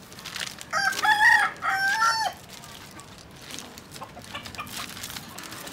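A rooster crows once, a cock-a-doodle-doo lasting about a second and a half that starts just under a second in. Beneath it is faint rustling and crackling of dry twigs and palm-leaf kindling being handled.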